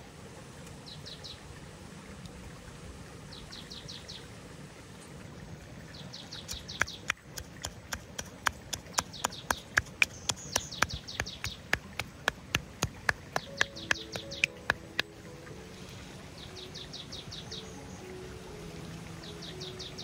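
Small birds singing short, fast, high trills, repeated every couple of seconds over a low outdoor hum. From about seven seconds in, a run of sharp, evenly spaced taps, about three a second, lasts for some eight seconds and is the loudest sound.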